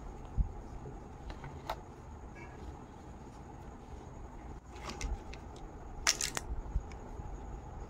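Handling noise of plastic-wrapped Kinder Joy eggs being held and set down on a tabletop: scattered light clicks and rustles over a faint steady hiss. The loudest is a quick cluster of clicks about six seconds in.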